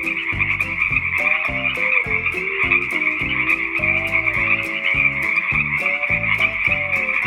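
A chorus of frogs croaking: many short overlapping calls, some sliding in pitch, over a steady high-pitched trill and rapid low pulses.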